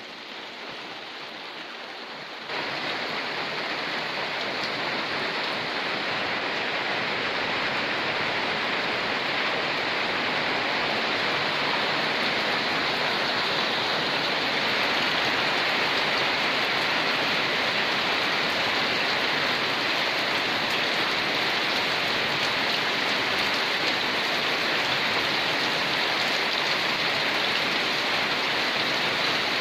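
Heavy rain falling steadily, a dense even hiss of drops. About two and a half seconds in it suddenly grows louder and fuller, then holds steady.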